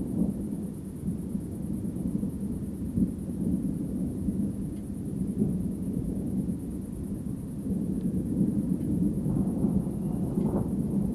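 Distant thunder rumbling low and continuously, swelling and easing.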